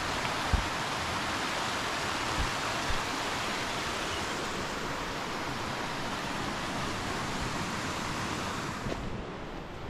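Steady rush of a mountain stream's fast-flowing water, fading somewhat near the end, with a soft thump about half a second in.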